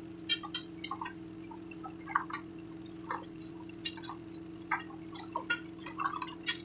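Water dripping and splashing in small, irregular drops and splashes over a steady low hum.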